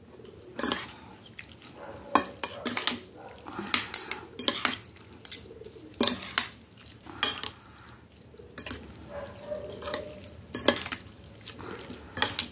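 Two metal forks stirring and tossing instant noodles in a glass bowl, with irregular clinks and scrapes of the forks against the glass.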